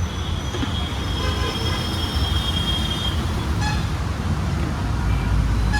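Road traffic running steadily, with a vehicle horn giving one long high-pitched toot for about three seconds.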